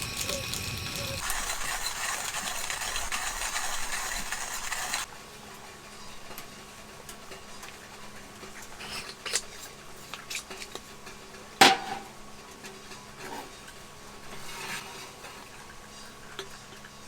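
A steady hiss that cuts off suddenly about five seconds in, then light clinks and scrapes of dishes and utensils being handled, with one sharp clack near the middle.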